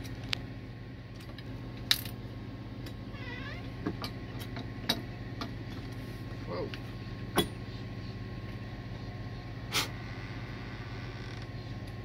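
Sharp, isolated clicks and taps of small metal lock parts and a cordless drill being handled at a camper door, about six of them spread over the stretch, over a steady low hum.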